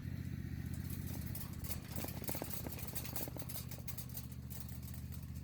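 Motorized yard trimmer running at a steady pitch, with a dense patter of sharp clicks and snaps over it as it cuts through brush.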